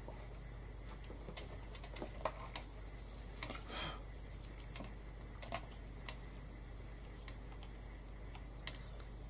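Scattered light clicks and taps of small metal cog embellishments being picked up from a plastic cutting mat, with a short rustle a little before the middle, over a faint steady hum.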